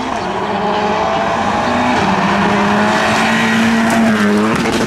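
Škoda Fabia Rally2 car's turbocharged four-cylinder engine held at high revs as it approaches and passes close at speed, with gravel noise from the tyres. The engine note drops sharply near the end.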